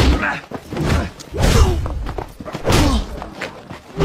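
Fight-scene sound effects: about four heavy punches and kicks land with loud thuds, each with a falling yell or grunt from the fighters.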